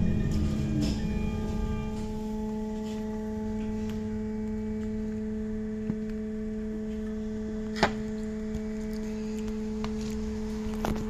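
Inside a MAZ-103T trolleybus at a standstill: a steady hum with several overtones from its onboard electrical equipment. A low rumble dies away in the first two seconds as the trolleybus comes to rest. A few sharp clicks are heard, the loudest about eight seconds in.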